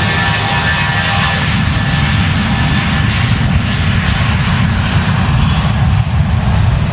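Jet engines of an Airbus A320-family airliner rolling along the runway close by: a loud, steady engine noise with a deep rumble, and a whine that fades about halfway through as the aircraft moves past and away.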